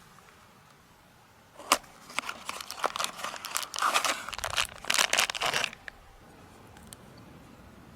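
Toy car packaging being opened by hand: a sharp click, then about four seconds of crinkling and tearing that stops abruptly.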